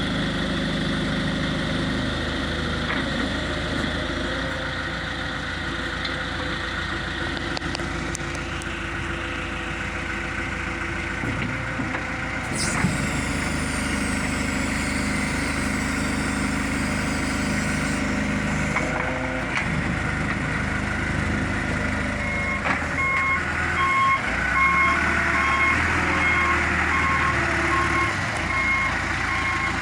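2003 John Deere 410G backhoe's diesel engine running steadily, with a high hiss for several seconds midway. In the last seven seconds its reversing alarm beeps repeatedly as the machine backs up.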